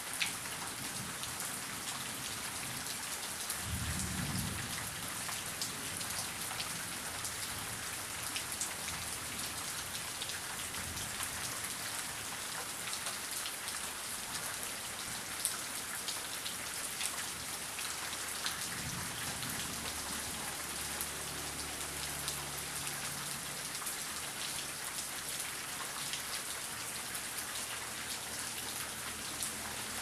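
Heavy rain falling steadily, with sharp individual drops hitting. Thunder rumbles low about four seconds in, then again for several seconds from just before the middle of the second half.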